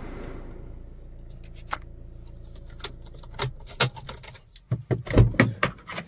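Hyundai Creta 1.6 CRDi diesel heard from inside the cabin. The air-conditioning fan's hiss dies away in the first second while the engine's low idle hum carries on, then the hum stops about four and a half seconds in as the ignition is switched off. Keys jangle and click throughout, and a few heavy thumps come near the end.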